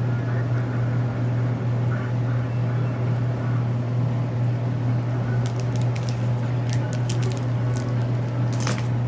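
A steady low hum, with scattered light clicks from a plastic Tangle fidget toy's segments being twisted, mostly in the second half.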